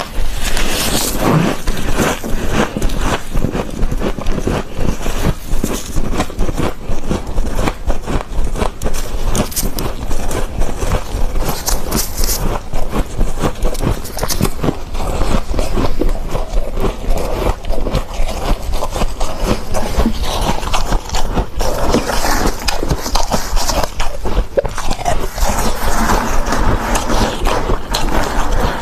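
Soft, fluffy freezer frost being scraped and crunched in the mouth: a dense run of crisp crackles and crunches.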